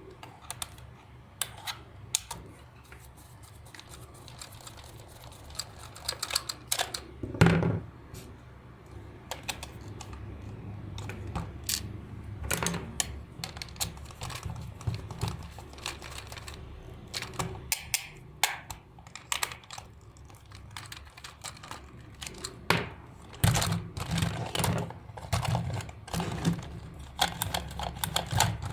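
Irregular small clicks and taps of parts of a plastic electric toy being handled and worked on during repair, with a louder knock about seven and a half seconds in and busier clicking near the end.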